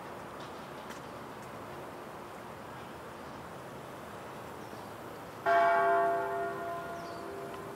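A single church bell struck once about five and a half seconds in, ringing out and dying away over about two seconds, its low hum lingering. The bell stands out against a steady background hum of the grounds.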